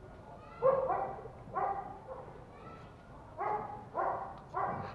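Toy Pomeranian puppy barking in play, five short yappy barks.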